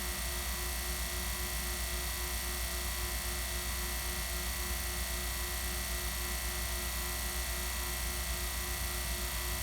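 HVAC vacuum pump running steadily with an even hum, holding a deep vacuum of about 390 microns late in an evacuation.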